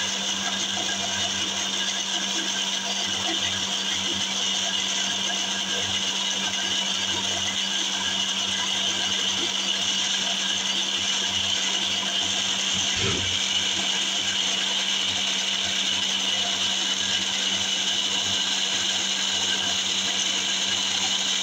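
Electric mixer-grinder running steadily, its small jar grinding chopped red onions into a paste.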